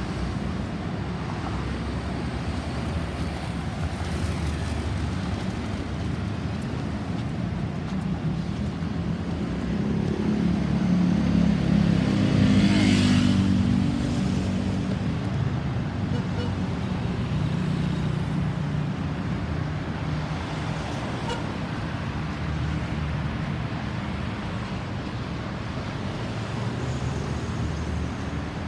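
Road traffic running steadily, with one vehicle passing close by: its engine and tyres grow louder to a peak about twelve to thirteen seconds in, then fade away.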